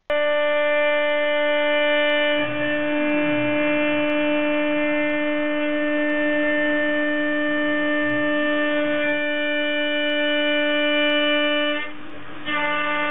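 CNC router spindle whining at a steady high pitch as an end mill roughs out a wooden relief. The whine dips briefly about twelve seconds in.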